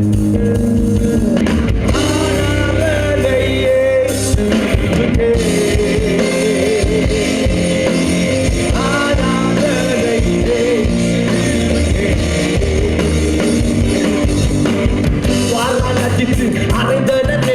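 Band music with guitar and drums, and a singing voice over it at times.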